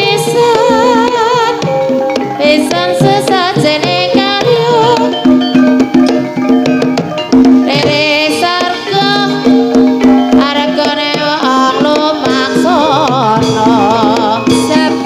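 Live ebeg dance music: hand drums struck in a busy rhythm under steady held notes and a wavering melody line with heavy vibrato.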